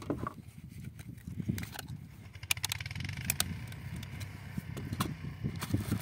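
Light plastic clicks and handling noise from fiber splice cassettes being fitted in an open splice enclosure, a few sharp clicks about halfway through and again near the end, over a steady low rumble.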